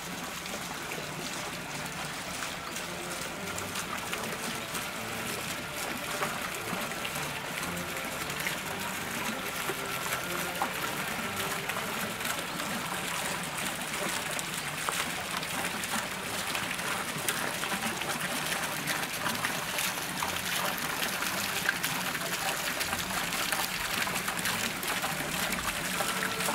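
Running, splashing water, a steady trickling wash, with faint voices of people in the background.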